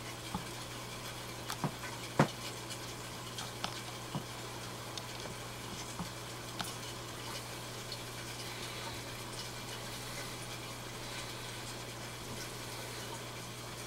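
Aquarium fish snapping at floating pellets on the water surface: scattered sharp pops and small splashes, most of them in the first half, the loudest about two seconds in, over a steady low hum and hiss of the tank's running equipment.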